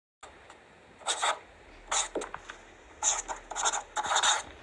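Scratchy, rustling noise in four short bursts, the last two the longest.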